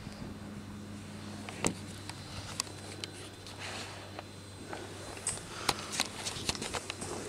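Steady low hum heard at the foot of an Enercon E-40 wind turbine tower. From about a second and a half in, scattered knocks and rustles of the camera being handled grow busier and turn into footsteps on grass near the end.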